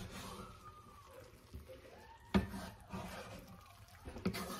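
Wooden spoon stirring and scraping steak and rice in a pot, with two sharp knocks against the pot, one about halfway through and one near the end.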